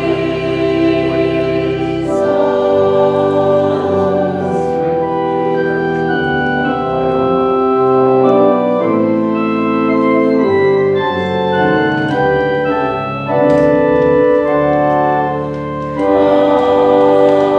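Church organ playing slow, held chords that change step by step, with a small mixed choir singing over it at the start and coming back in near the end.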